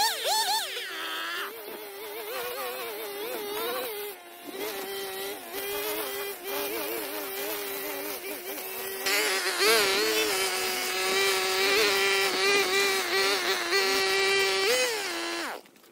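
Two-stroke brush cutter running at high revs, its buzzing pitch dipping and rising as the load changes while cutting grass. It cuts off abruptly just before the end.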